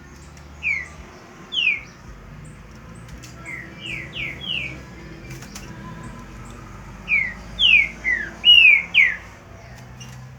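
Green-winged saltator (trinca-ferro) calling: short, sharp down-slurred whistled notes, two near the start, then a quick run of four and a louder run of five.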